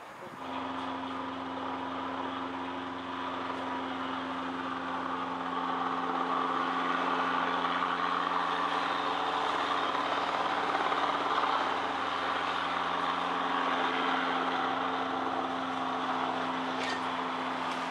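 Small two-seat training helicopter running steadily as it lifts off and hovers, a constant drone of engine and rotors that grows louder over the first several seconds and then holds level.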